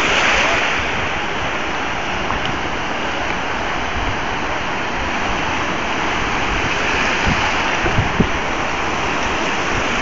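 Sea surf breaking and washing up a beach, a steady rushing noise, with a few brief low thumps about seven to eight seconds in.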